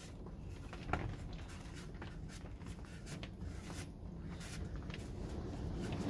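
Cloth rubbing over a wooden board, wiping glue squeeze-out from around a freshly glued bowtie inlay, with a light knock about a second in.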